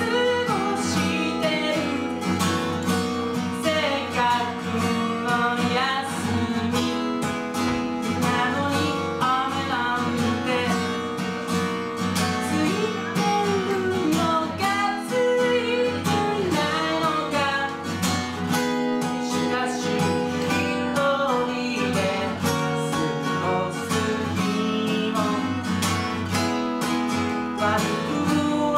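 A man singing a song while strumming an acoustic guitar, a live solo performance with the voice carrying the melody over steady strummed chords.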